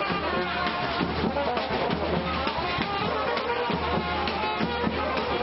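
Brass band playing without a break.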